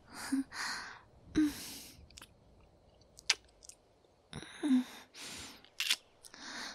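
Close-miked kissing by a woman: about five wet lip smacks, some with a short hummed "mm", between breathy inhales and exhales.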